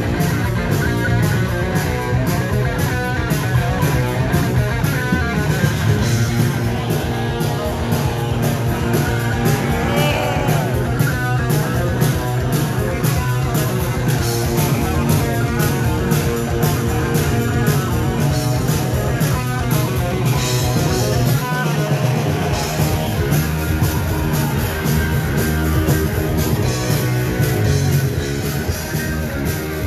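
Heavy metal band playing live and loud: electric guitars over bass and drums at a fast, steady beat. A little past twenty seconds in, the low end drops out for about a second before the full band comes back.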